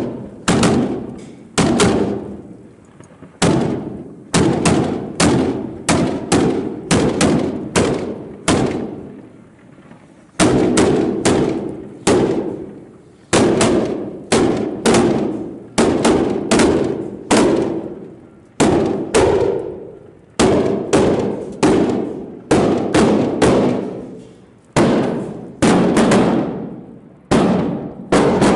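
A long run of cohetes, Mexican firework rockets, exploding one after another. Dozens of loud sharp bangs come about one or two a second at an uneven pace, each trailing off in a ringing echo.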